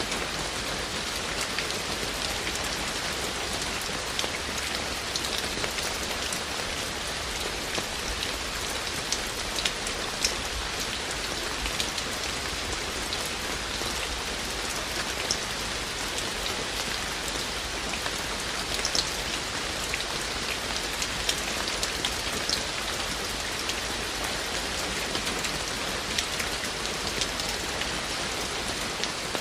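Steady rain falling, an even hiss with many individual drops ticking sharply on surfaces.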